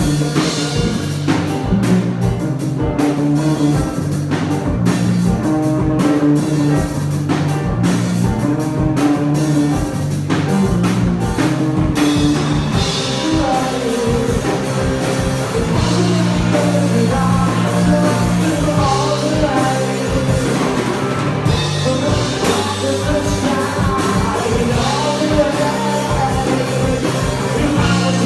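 A rock song: singing over a drum kit and guitar with a steady beat.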